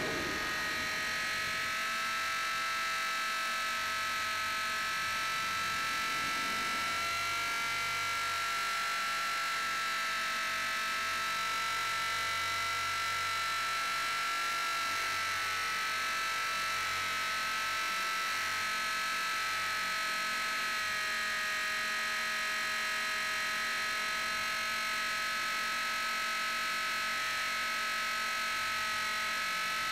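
Blade 450 X electric RC helicopter in flight: its brushless motor and rotor gearing give a steady whine, picked up close by a camera mounted on the helicopter. The pitch wavers slightly as the rotor speed shifts.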